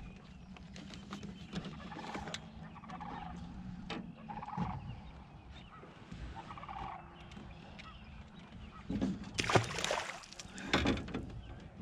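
Distant birds giving several short calls over a low steady hum, with a couple of louder sudden noises near the end.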